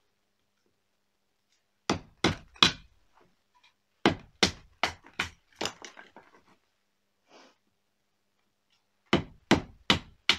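Batoning firewood: a wooden stick knocking the spine of a puukko knife to split a log on a chopping block, in sharp wooden knocks a few per second. Three come about two seconds in, a run of about six follows, and another run starts near the end.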